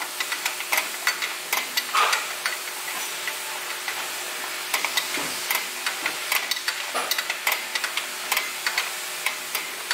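Star-wheel adjuster of a self-adjusting rear drum brake being turned with a brake adjusting tool, giving irregular metal clicks and scrapes several times a second. The wheel is being turned to move the adjuster out and spread the shoes toward the drum.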